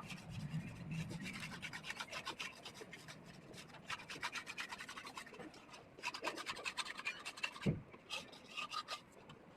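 Laddoo mixture being mixed in a vessel: quick repeated scraping and rubbing strokes that pause briefly about halfway and then start again, with a single low thump near the end.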